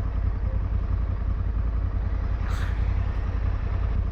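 Parallel-twin adventure motorcycle engine running steadily, a low, even rumble.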